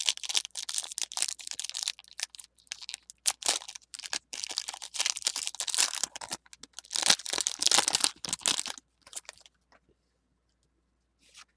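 Foil Pokémon booster pack wrapper being torn open and crinkled in the hands, a dense crackling rustle that stops about nine seconds in.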